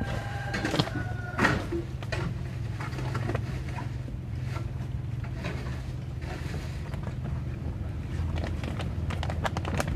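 A small engine idling with a steady low hum, with a few sharp knocks and creaks as monkeys clamber over the seat and hammock, and a cluster of clicks near the end.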